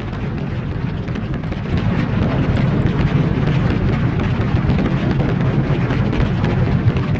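Loud, steady rumbling noise with crackling over it, growing louder about two seconds in.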